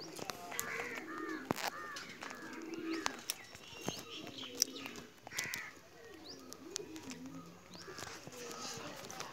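Birds calling: repeated short chirping calls over lower warbling calls, with a few sharp clicks in between.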